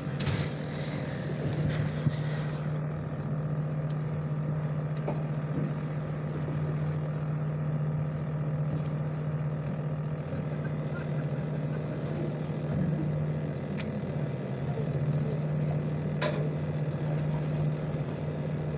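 Party fishing boat's engine running steadily, a low even drone. Two brief clicks come late on.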